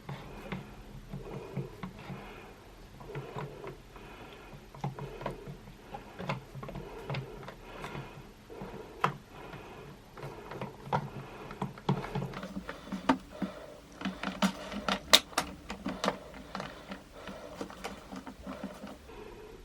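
Clear slime mixed with Orbeez water beads being squished and played with by hand, making an irregular run of wet squelches and small popping clicks, with sharper, louder pops in the second half.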